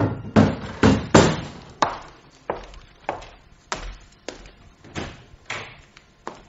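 Footsteps walking off: about a dozen steady steps at an even walking pace, loudest at first and fading as they move away.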